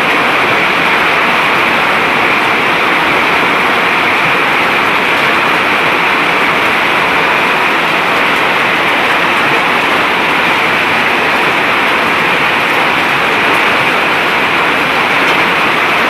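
Hailstorm with heavy rain, a dense, steady, loud rush of falling hail and water that does not let up.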